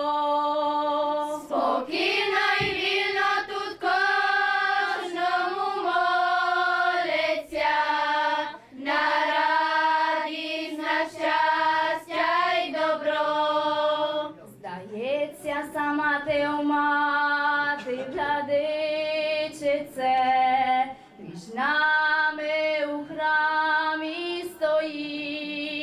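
Girls' church choir singing a Ukrainian Orthodox hymn to the Mother of God with no instruments, in long held phrases with short breaks for breath.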